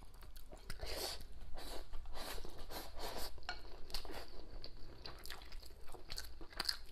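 Close-miked eating sounds: wet chewing and lip smacks over a mouthful of braised pork belly and rice, with bamboo chopsticks clicking and scraping against the plate as she picks up more. Irregular small clicks and smacks throughout.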